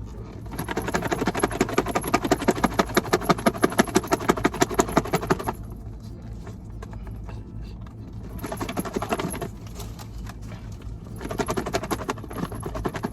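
A salad being shaken hard in its lidded takeout container to mix in the dressing: a fast rattling of about four shakes a second, in three bouts. The first and longest bout lasts about five seconds.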